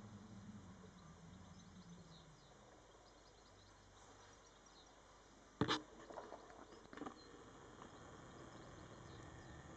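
Quiet outdoor ambience with faint, scattered bird chirps and a low hum that fades away in the first few seconds. A little past halfway comes a single sharp knock, the loudest sound, followed by two or three weaker knocks over the next second or so.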